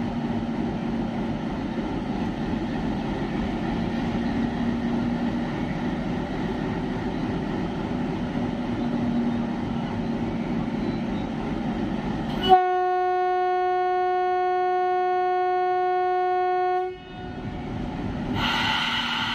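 WDG-3A diesel-electric locomotive's 16-cylinder ALCO engine running with a steady low rumble, then its horn sounds one long, steady blast of about four seconds starting about twelve seconds in. Near the end the engine noise comes back louder.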